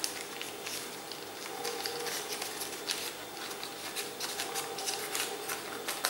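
Baking paper crinkling and rustling under fingers as the edges of a puff pastry sheet are folded over and pressed down, in quick irregular crackles.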